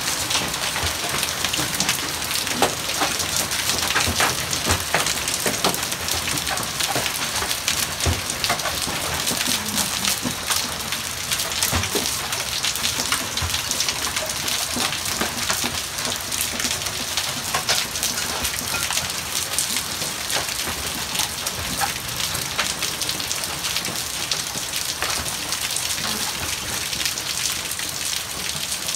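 Large hailstones falling heavily on a garden and paving: a dense, steady hiss full of sharp, separate clicks and knocks as individual stones strike.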